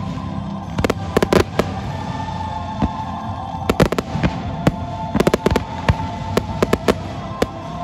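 Aerial firework shells bursting in a string of sharp bangs, irregularly spaced and sometimes in quick clusters, over music playing underneath.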